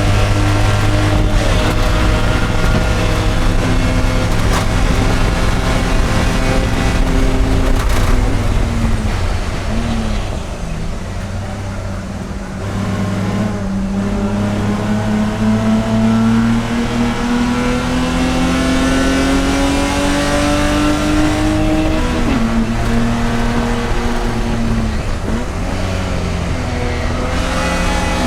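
Race car engine under hard driving. It eases off for a few seconds, then the revs climb steadily for several seconds before dropping sharply on an upshift about two-thirds of the way through, and climb again.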